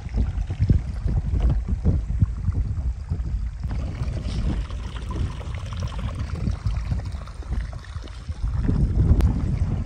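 Wind buffeting the microphone in uneven gusts, a low rumble that rises and falls, with a single sharp click near the end.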